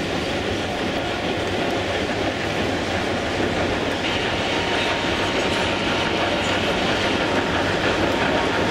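Large-scale model steam locomotive and coaches running on the layout's track, a steady rolling clatter of wheels on rails that grows a little louder as the train approaches.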